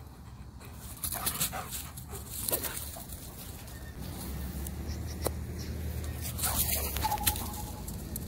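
A German shepherd whimpering and whining, with scuffing and rustling in dry fallen leaves. A short, high whine comes near the end.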